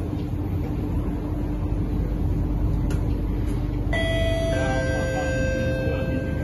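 Steady running rumble of a Kawasaki-Sifang C751B metro train, heard inside the carriage. About four seconds in, the onboard two-note chime sounds: a higher note, then a lower one, the two ringing on together, the signal that comes before the next-station announcement.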